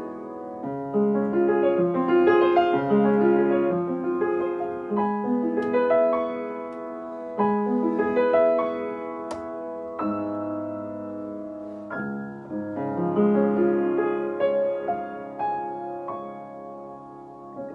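Upright piano played solo: chords and a melody, notes held and sustained, the loudness swelling and easing phrase by phrase.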